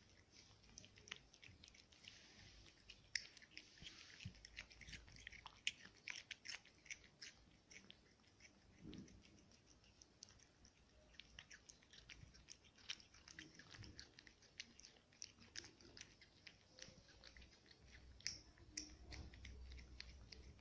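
A cat chewing and licking soft food off a plate: faint, irregular, wet smacking and clicking mouth sounds, with a few sharper ticks.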